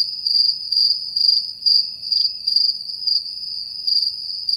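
Crickets chirping as an edited-in sound effect: a steady high trill pulsing in chirps a few times a second. It cuts in and out abruptly, with nothing else behind it.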